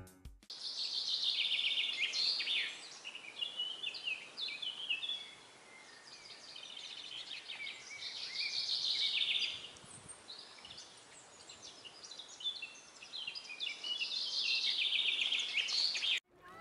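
Small songbirds chirping and trilling in quick, high runs over a faint steady hiss, coming in several busy spells with quieter gaps between.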